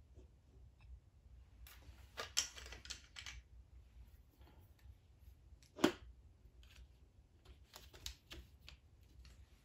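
Light metal clicks and clatters from hand tools and engine parts handled on a bare Ford 427 SOHC engine block: a flurry of clicks about two seconds in, one sharper knock near six seconds, and another flurry about eight seconds in.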